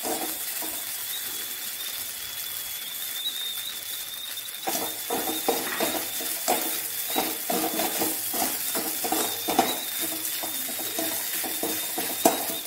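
Idli pieces frying in oil in a metal kadai, sizzling with a steady hiss while being stirred. From about five seconds in, a spatula scrapes against the pan in quick repeated strokes, about three a second.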